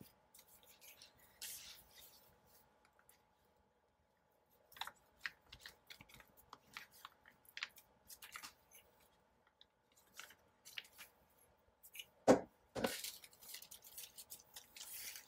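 Scissors snipping paper in short, irregular cuts, with two louder knocks about twelve seconds in.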